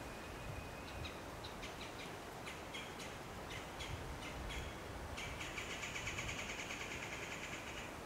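Bird calls: a thin held note, then a string of sharp chips, then a fast rattling trill over the last few seconds. Low wind rumble on the microphone underneath.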